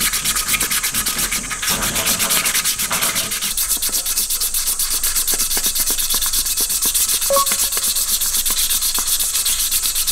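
Hand wet-sanding a stainless steel Opinel sierra cup with 1000-grit waterproof sandpaper: the paper rubs the metal in fast, even back-and-forth strokes.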